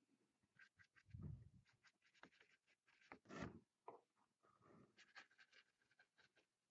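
Faint, scattered small clicks and taps of a paintbrush and watercolour painting gear being handled, with two soft knocks, one about a second in and one a little past three seconds.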